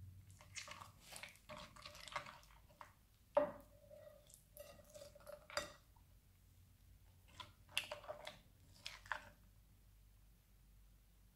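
Silicone spatula stirring and folding a runny, glittery slime mix in a glass bowl: irregular wet squelching and sticky clicking in bursts, with one sharp tap of the spatula about three and a half seconds in.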